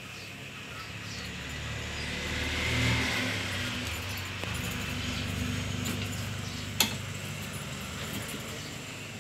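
A passing motor vehicle's engine rumble that builds to its loudest about three seconds in and then slowly fades, with a single sharp click about seven seconds in.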